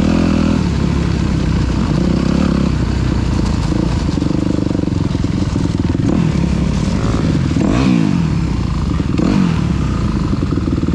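Yamaha YZ250F four-stroke single-cylinder dirt-bike engine running at low speed, the revs rising and falling a few times about two-thirds of the way in.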